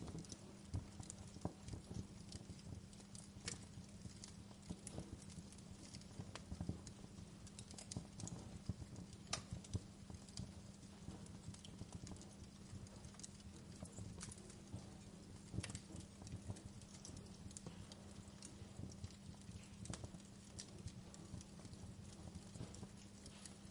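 Wood fire burning in a fireplace: irregular crackles and pops over a steady low hum.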